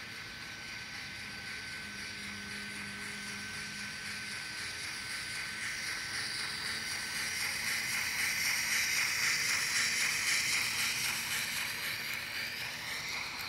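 Kato C62 4-6-4 N scale steam locomotive running past with its DCC sound decoder playing rhythmic steam exhaust chuffs through the model's tiny speaker, over the model's running noise. It grows louder as the engine nears, loudest about two thirds of the way through, then fades.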